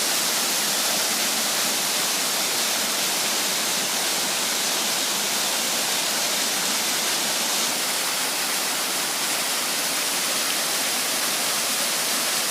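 Steady rushing of water at the upper cascade of Mingo Falls, the stream that feeds the waterfall: an even, unbroken hiss.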